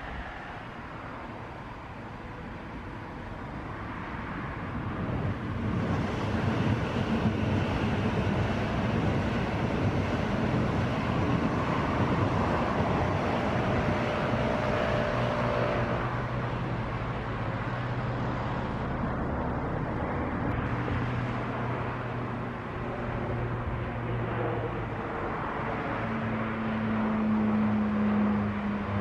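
SBB electric passenger train running past on the track below, its rolling noise swelling to a peak midway, with a brief whine. Steady road traffic runs alongside.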